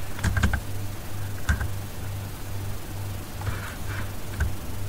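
A few scattered keystrokes on a computer keyboard, a quick cluster just after the start, one about a second and a half in and another near the end, over a steady low electrical hum.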